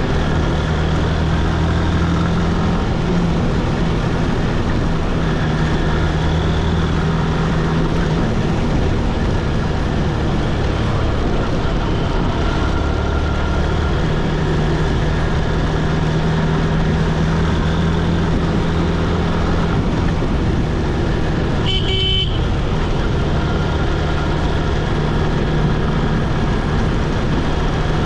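Motorcycle riding along a road: steady engine and wind noise, the engine hum swelling and easing with the throttle. A vehicle horn toots once, briefly, about three-quarters of the way through.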